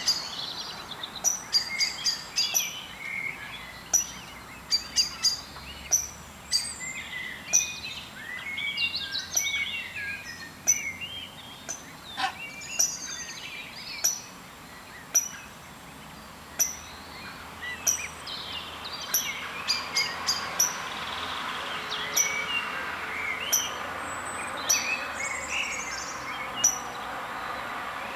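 Wild songbirds singing and calling, with one sharp high call repeated about once a second over a warbling chorus. A steady background hiss grows louder in the second half.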